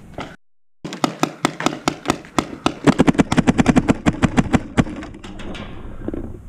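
Paintball markers firing rapid strings of shots, up to about eight a second, the firing stopping about five seconds in.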